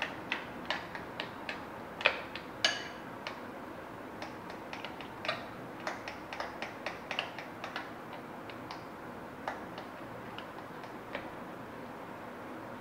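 Metal spoon clinking against a glass mixing bowl while stirring a wet mango-pulp and condensed-milk batter: irregular light clicks, a few a second, with two sharper ones early, thinning out after about eight seconds.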